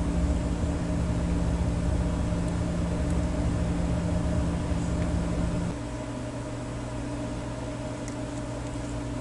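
Steady low electrical hum and whir of running machinery. About six seconds in, part of it cuts off and a quieter, lower hum carries on.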